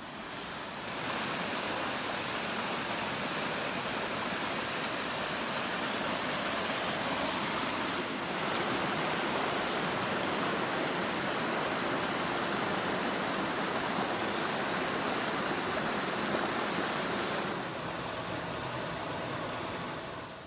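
Creek water rushing steadily over rocks in small rapids, a little quieter near the end.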